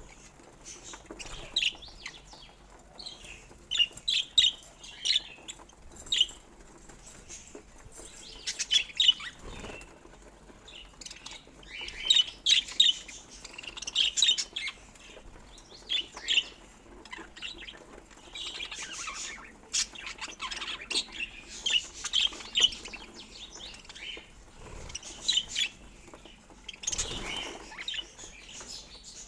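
Budgerigars chirping and chattering in irregular clusters of short, high chirps.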